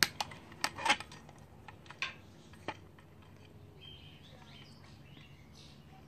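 Wire cutters snipping through the lead wires of a ceiling-fan light's electronic ballast, a few sharp clicks, the loudest just under a second in, then two lighter clicks about two and nearly three seconds in.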